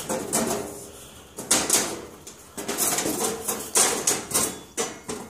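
Handling noise of a flat panel being folded up into a box: irregular rustling and knocking, two or three short sounds a second.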